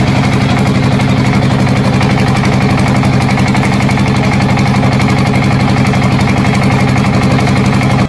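Diesel tractor engine idling with a steady, fast chugging, cutting off suddenly at the end, laid on as an engine sound effect.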